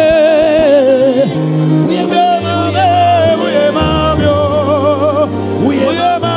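A man singing a slow gospel worship song into a microphone, his voice wavering with heavy vibrato in long held phrases, with short breaths between them. Under him, instruments hold sustained low chords that change every second or so.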